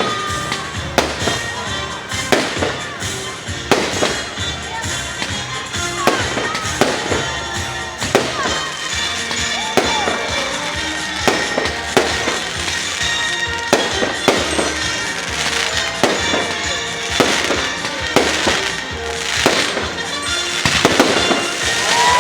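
Fireworks salute bursting overhead, a sharp bang roughly every second, some shells whistling.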